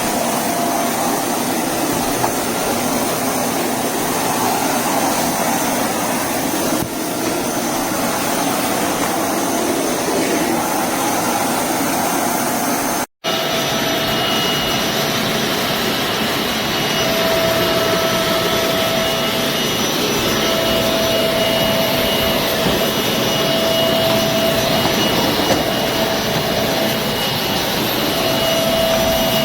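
Bissell Zing bagless canister vacuum cleaner running steadily, a loud rushing motor noise with a high whine. It cuts out for an instant about halfway through, then carries on with the whine more pronounced.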